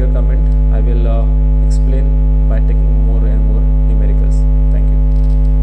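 Loud, steady electrical mains hum at about 50 Hz with a ladder of overtones above it, and faint voices in the background.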